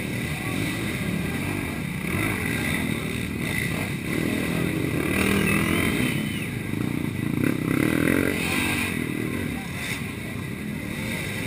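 Racing quad (ATV) engine revving hard as the machine churns through a deep mud pit, its sound rising and falling and loudest about midway, with spectators' voices around it.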